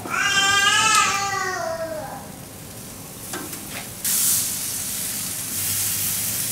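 Food sizzling on a hot grill, a loud hiss that starts abruptly about four seconds in. It follows a drawn-out pitched squeak in the first two seconds whose pitch falls at the end.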